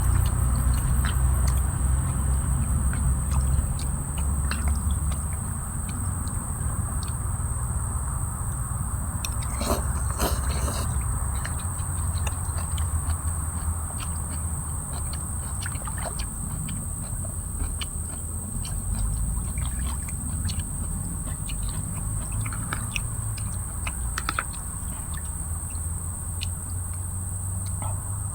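Outdoor ambience: a steady low rumble, stronger for the first few seconds, under a constant thin high-pitched hiss, with scattered faint clicks.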